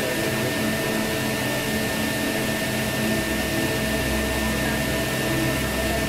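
Cabin noise of a De Havilland Canada DHC-6-300 Twin Otter: its two Pratt & Whitney PT6A turboprops and propellers make a steady drone with a thin high tone over it. A deeper rumble grows stronger about midway.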